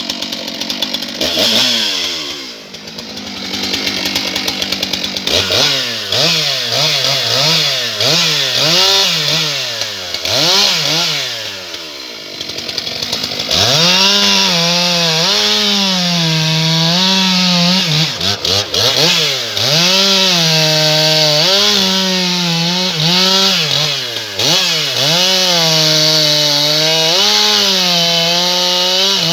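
Stihl MS 661 C-M, a big two-stroke chainsaw, revved up and down in quick blips for the first dozen seconds. It is then held near full throttle, its pitch dipping again and again as it cuts into small logs.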